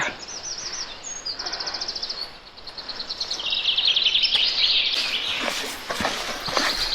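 Small songbirds singing a string of rapid high trills, one after another. A few short knocks come in near the end.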